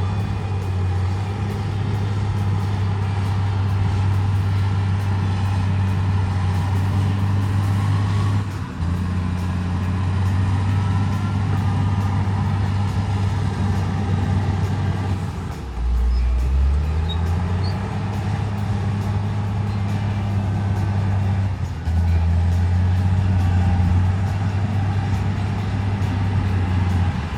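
Large diesel bulldozer engine working under load, a steady low drone whose pitch dips and climbs back a few times, most clearly about halfway through.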